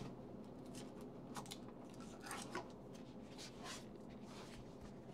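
Faint, scattered clicks and light rustling of trading cards and plastic card sleeves being handled.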